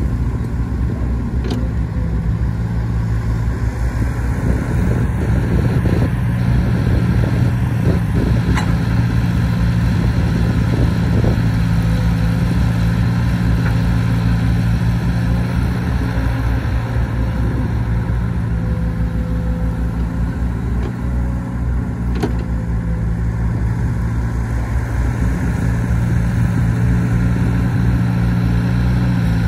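Crawler excavator's diesel engine running steadily under working load as the machine swings, digs and dumps soil, with a few brief knocks.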